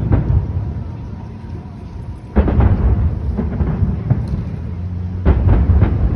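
Fireworks shells bursting: a heavy boom at the start, another about two and a half seconds in and a third about five seconds in, each followed by a quick run of sharp pops.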